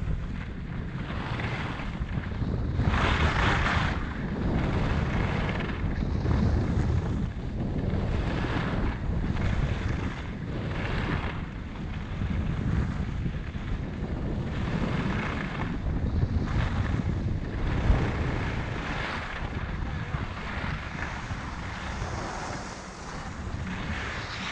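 Skis turning down a snow slope, the edges scraping and hissing on the snow in swells about every second or so, under steady wind rumble on the microphone.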